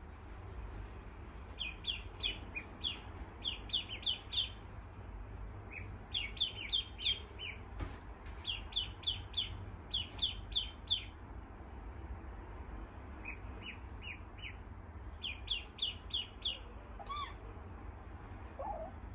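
Ducklings peeping: quick runs of short, high cheeps in bursts with brief pauses between, and a single short falling call near the end.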